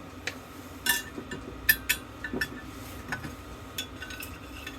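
Small metal parts of a dismantled fire bell clinking and clicking as they are handled and set down: a dozen or so sharp, separate clinks, the loudest about a second and a half in.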